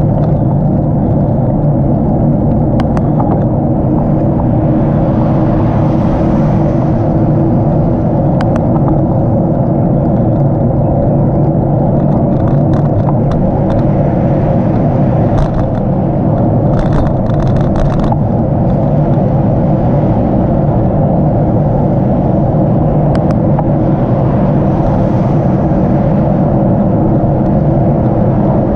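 Steady, loud wind rush and road rumble on the microphone of a camera riding along on a moving bicycle, with a few faint scattered clicks.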